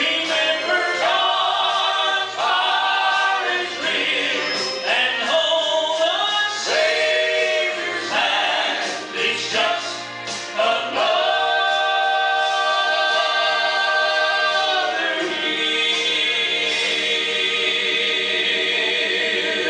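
Southern gospel vocal group singing in harmony over a low sustained accompaniment, closing on a long held final chord that starts about halfway through and is sustained almost to the end.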